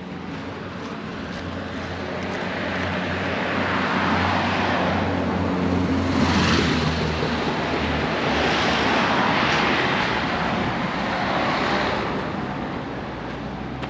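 Cars passing close by on a narrow road, engine hum and tyre noise swelling over several seconds, with a few separate surges as vehicles go past, then easing off near the end.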